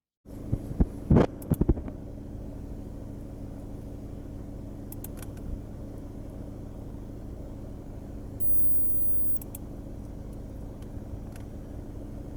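Steady low mechanical hum, with a few sharp knocks about a second in.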